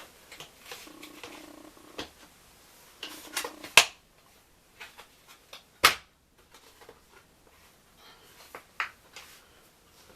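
Parts being fitted together by hand during assembly: scattered clicks and knocks, the loudest about four seconds in and another about six seconds in.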